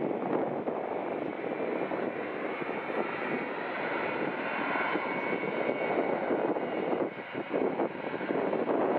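Jet engine noise from a Boeing E-3A AWACS and its four TF33 turbofans: a steady, broad rushing sound that dips briefly about seven seconds in.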